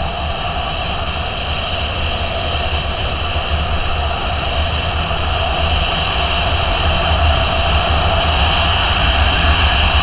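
Motorcycle riding at steady cruising speed: the engine running under wind rush buffeting the microphone, growing slightly louder toward the end.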